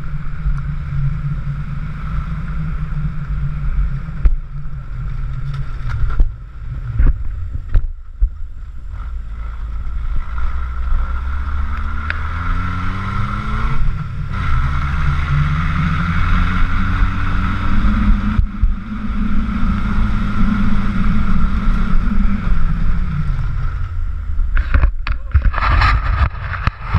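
Nissan Terrano's engine running as the 4x4 drives over a rough gravel track, heard from outside the driver's window with wind on the microphone. The engine note climbs several times in the middle, and there are a few sharp knocks early on from the rough ground.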